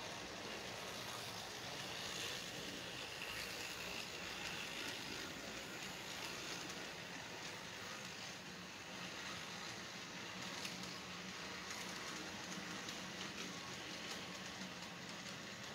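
Model freight train cars rolling past on the layout track: a steady hiss of wheels on rail over a low, even hum.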